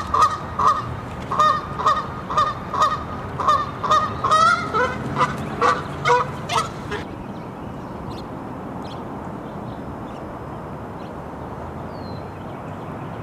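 Goose honking repeatedly, about two loud calls a second, stopping about seven seconds in. After that only steady outdoor background noise remains, with a faint small-bird chirp near the end.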